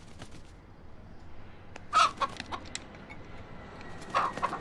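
White broiler rooster clucking in two short bursts, about two seconds in and again near the end, with a few light clicks between.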